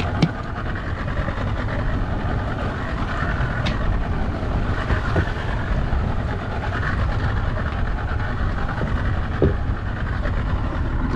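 Small skiff under way in strong wind: a steady rumble of wind buffeting the microphone over the running outboard motor and water, with a few light knocks.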